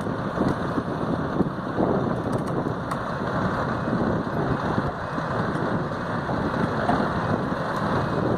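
Link-Belt 350X3 excavator's diesel engine running steadily, with wind noise on the microphone.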